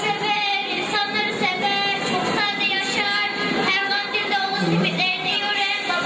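Several voices talking or singing over one another without pause in a large, echoing hall.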